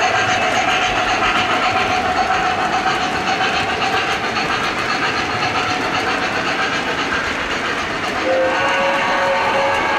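O-gauge MTH model freight train rolling on three-rail track: a steady rumble and clatter of wheels as a long string of cars passes. A steady tone joins about eight seconds in.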